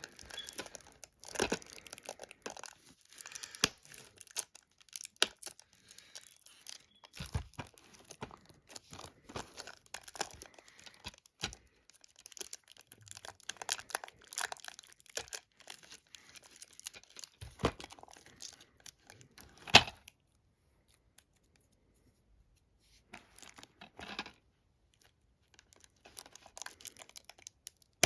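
Plastic shrink-wrap being torn and peeled off a DVD case: irregular crinkling and tearing with sharp crackles. It stops for a couple of seconds about two-thirds of the way through, then starts again more softly.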